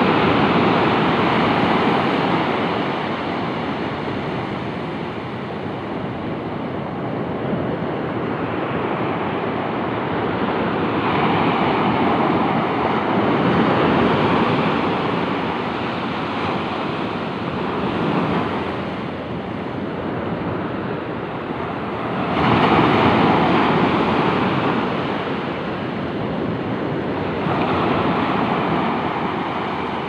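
Sea waves breaking on a sandy beach and washing up the shore, the surf noise swelling and ebbing every few seconds, with one louder surge about three-quarters of the way through.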